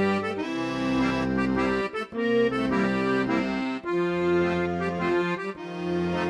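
Music led by an accordion playing sustained chords that change every second or so.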